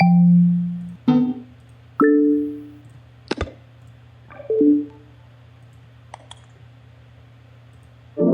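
A string of short user-interface sound effects played one after another, about one a second: pitched blips, pops and chimes, some ringing out for about a second, with a few sharp clicks between them.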